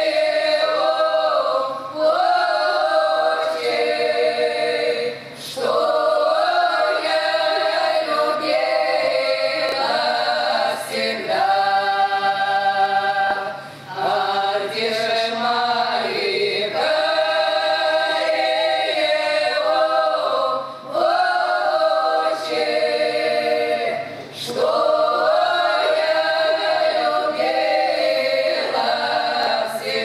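Women's folk choir singing a Russian folk romance a cappella, long held phrases broken by short breath pauses every few seconds.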